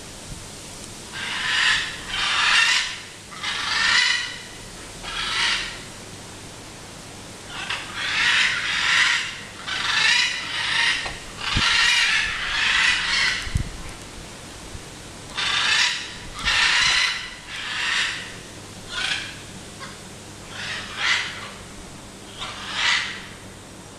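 Macaws screeching: harsh squawks one after another, about twenty of them in uneven runs with short pauses between.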